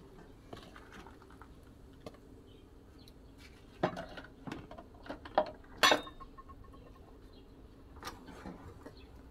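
A cooking pot and utensils knocking and clinking while ugali is being cooked. There are a few sharp strikes about four to six seconds in, the loudest near six seconds, and one more near eight seconds.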